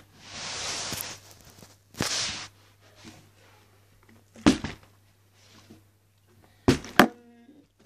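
Partly filled plastic water bottle handled close to the microphone with a short rustling hiss, then flipped and landing on a surface: four sharp knocks, the last two close together near the end.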